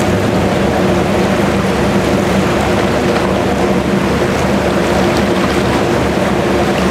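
Steady drone of a ship's engine, with a constant low hum, over the wash of choppy water and some wind.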